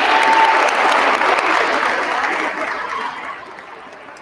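A small audience clapping in a gymnasium, the applause dying away about three seconds in.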